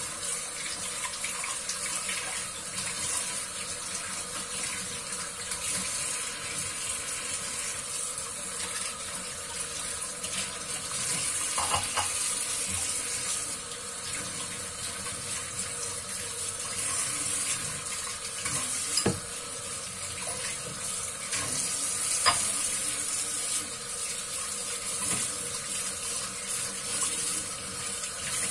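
Kitchen tap running steadily into a stainless steel sink while plastic dishes are rinsed and rubbed under the stream. A few brief knocks come as the dishes are handled, the sharpest about two-thirds of the way through.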